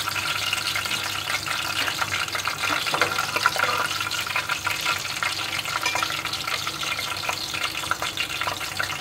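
Hot oil sizzling and crackling steadily in a metal pot, frying a tempering of mustard seeds, cumin, ajwain, chopped garlic and whole red chillies. Chopped onion goes into the oil within the first few seconds and fries with it.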